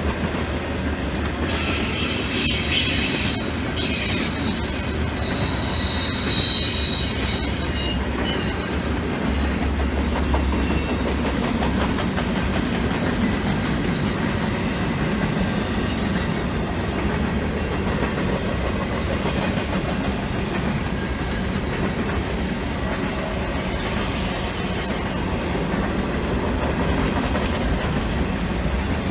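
Train cars rolling past with a steady rumble of wheels on rail. High-pitched wheel squeals ring out around 6 to 8 seconds in, and a longer, even higher squeal holds from about 20 to 25 seconds.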